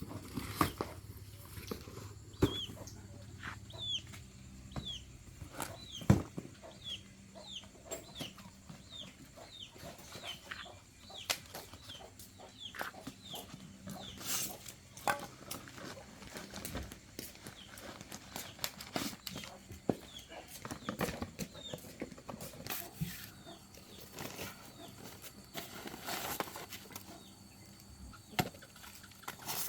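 Chickens calling, with a run of short, high, falling peeps about two a second that thins out after about ten seconds. Scattered sharp knocks and clinks are mixed in, the loudest about six seconds in.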